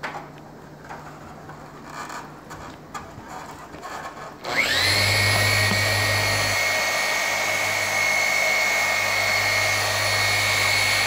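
Handling noises at first, then a Griot's Garage BOSS dual-action orbital polisher switches on about four seconds in. Its motor whine rises quickly to speed and then runs steadily as the pad buffs compound into the RV's fiberglass gel coat.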